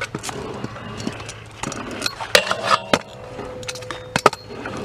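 Stunt scooter riding in a skate park: a run of sharp metallic clacks and knocks from the deck and wheels on ramps and rail. One hard hit a little over two seconds in leaves a metallic ringing tone that fades out about two seconds later.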